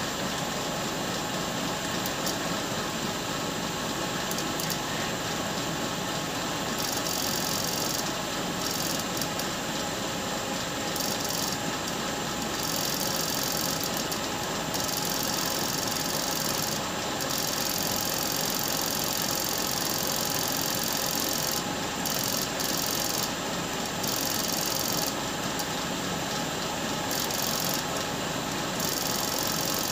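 Homemade permanent-magnet generator rig built from an e-rickshaw motor running steadily at speed, a constant mechanical whirr with several fixed pitches, and a high hiss that cuts in and out.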